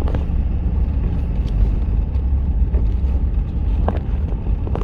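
A vehicle being driven: a steady low rumble of engine and road noise, with wind on the microphone and a couple of faint knocks near the end.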